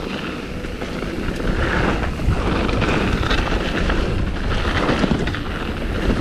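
Wind buffeting the microphone of a handlebar-mounted action camera, over the crunch and rattle of a 2009 Kona Stinky downhill mountain bike rolling down a loose gravel trail, with many small knocks from the rough surface.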